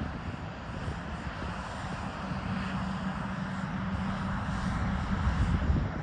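Diesel engine of a JCB 419S wheeled loader running as it carries a stack of straw bales on its bale spike. A steady hum joins about two seconds in, and the engine gets louder near the end.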